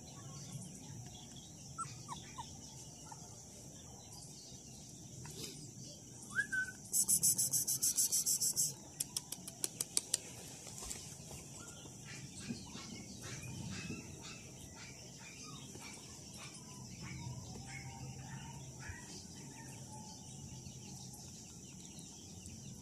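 Birds calling in the background: scattered short chirps, and about seven seconds in a rapid, high, evenly pulsed trill lasting under two seconds, then a few fading clicks.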